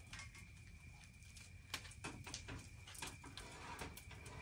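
Faint clicks and light metal rattles of wire jerky racks being slid onto the rails of a vertical pellet smoker, a few separate clicks over a faint steady high-pitched tone.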